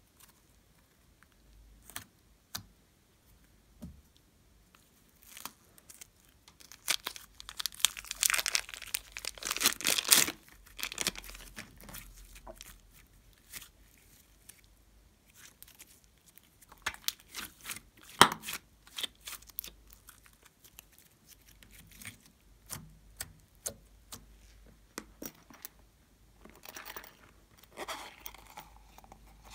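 Sticky slime being pressed, stretched and peeled apart by hand: crackling, tearing sounds and scattered small clicks. The longest and loudest stretch of crackling comes about eight to ten seconds in, with shorter bursts later and again near the end.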